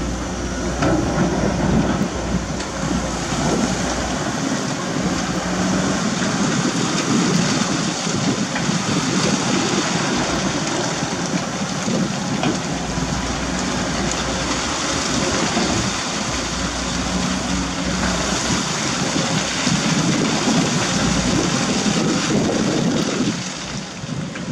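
Caterpillar 320D2 GC excavator's diesel engine running under load as the bucket digs wet sand in water, with water splashing and sloshing around it. The sound gets quieter about a second before the end.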